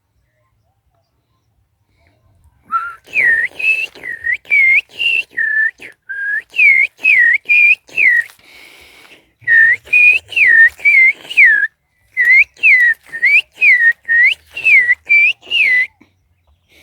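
Loud whistling: a run of short swooping notes, each dipping and rising, about two to three a second, in three phrases with brief pauses between them.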